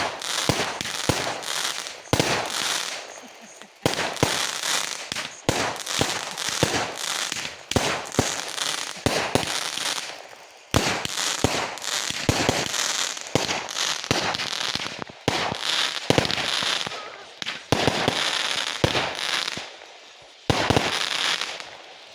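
Consumer fireworks going off in a rapid series: sharp bangs in volleys a second or two apart, each trailed by crackling, with a few short pauses and a last volley before it dies away.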